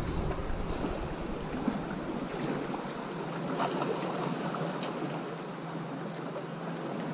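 Sea waves washing against a rocky shore, with wind buffeting the microphone and a few faint clicks.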